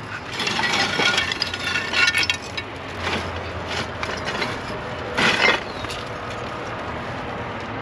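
Small metal objects clinking and clicking as they are pulled off and handled, a quick run of clinks at first and one louder knock about five seconds in.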